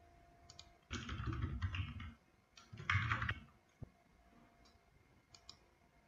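Typing on a computer keyboard in two quick runs, one about a second in and a shorter one around three seconds in, followed by a few single mouse clicks.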